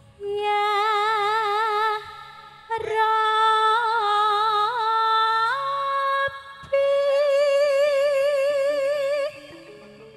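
Female sinden-style singer through a PA, singing long held notes with wide vibrato in three phrases separated by short breaths; the pitch steps up about halfway through. A faint, sparse band accompaniment sits underneath.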